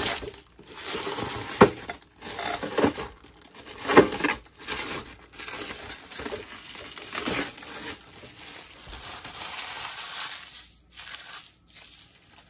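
Clear cellophane wrap crinkling and rustling in irregular bursts as it is pulled off and bunched up by hand, dying down in the last couple of seconds.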